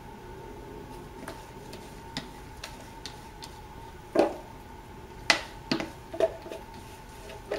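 Spatula knocking and scraping against a plastic pitcher as the last of the soap batter is scraped out: a handful of sharp knocks and clicks, starting about four seconds in. A faint steady hum runs underneath.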